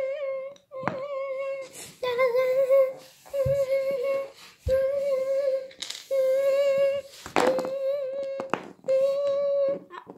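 A child humming a string of about eight short notes, nearly all on the same pitch, with brief gaps between them. A few soft knocks come in between the hums.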